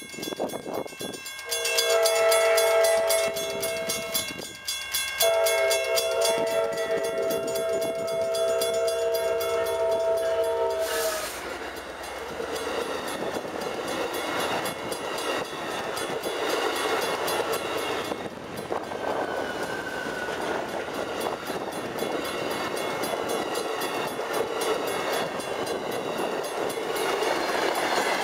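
Amtrak Pacific Surfliner locomotive horn sounding two long blasts, the second about twice as long, over a ringing grade-crossing bell. From about eleven seconds in, the bilevel Surfliner cars roll past with a steady rumble and clatter of wheels on rail.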